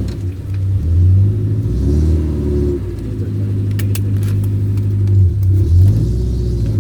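Off-road vehicle's engine revving under load, its pitch rising and falling several times as the throttle is worked over rough ground, with a few short knocks about four seconds in.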